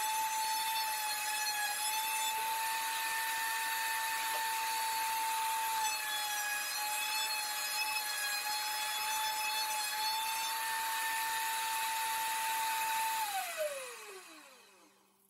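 Router mounted in a router table running at a steady whine while a round-over bit rounds the edges of a small wooden dish. About 13 seconds in it is switched off and spins down, its pitch falling away.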